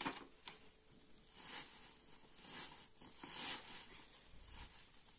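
Dry straw rustling as it is stuffed by hand into woven plastic sacks, in short scoops about once a second.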